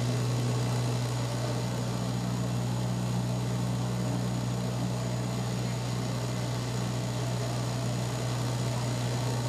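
Steady drone of a Bombardier Dash 8-100's turboprop engine and propeller in flight, heard from inside the cabin beside the propeller. The strong low hum stays even throughout.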